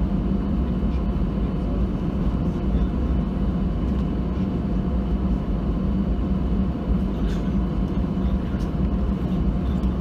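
Steady cabin noise of an Airbus A319 taxiing, heard inside the cabin over the wing. Its two CFM56 engines run at low taxi thrust, giving an even drone with a low hum.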